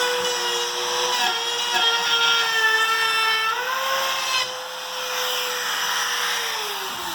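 Handheld router with a bearing-guided flush trim bit running at speed, trimming the board's top flush with its frame: a steady high motor whine whose pitch wavers slightly under the cut, then falls over the last second or so as the motor slows.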